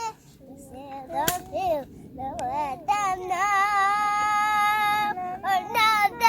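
A child's high voice singing without words in long, wavering held notes. A sharp click comes about a second in.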